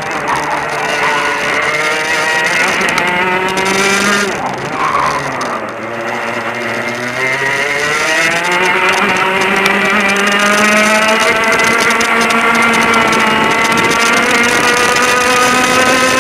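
Easykart two-stroke kart engine heard onboard. It runs at high revs, drops away about four seconds in as the kart slows for a corner, then climbs steadily back up and holds high revs as the kart accelerates.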